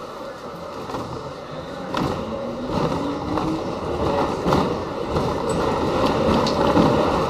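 R68 subway train running through a station: steady wheel and rail noise that grows louder, with several sharp clacks from rail joints and a short rising motor whine.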